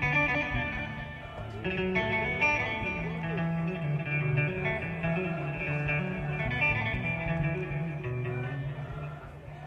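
Live music: a plucked string instrument playing a melody of quick, changing notes over sustained low bass notes.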